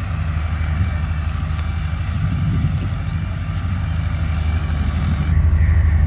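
Wheat thresher running, a steady low machine drone that grows louder about five seconds in.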